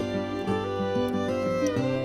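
Instrumental background music, a tune of changing notes.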